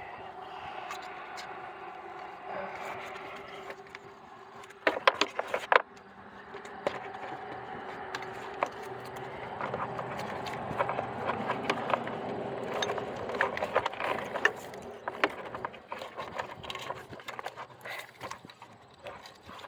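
Scattered clicks and knocks of hands and parts handled under a car's hood, with a quick cluster about five seconds in, over a steady hum.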